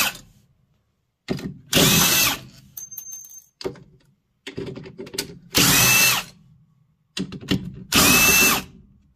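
Power drill with a 7 mm nut-driver bit backing out the screws that hold the washer's motor stator, running in three short bursts of about a second each, its whine dropping as each one stops, with quieter rattling between bursts.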